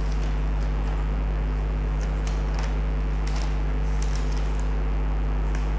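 A steady low background hum, with a few faint light clicks scattered through it.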